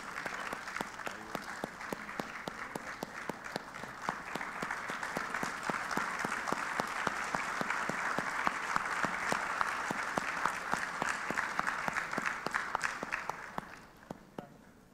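Audience applauding, many hands clapping together; the applause swells to its strongest in the middle and dies away near the end.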